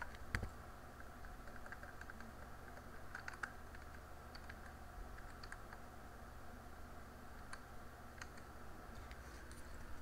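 Computer keyboard keystrokes, faint and scattered, with a short run of quick taps about three seconds in, over a low steady hum.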